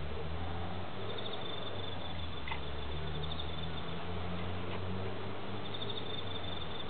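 Garden ambience with a steady low hum, and an insect's rapid, high chirping trill heard in two stretches, about a second in and again near the end. Two faint clicks fall in between.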